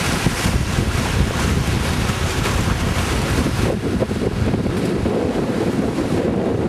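Wind buffeting the microphone over water rushing and splashing along the hull of a sailing catamaran under way, a steady rush of noise.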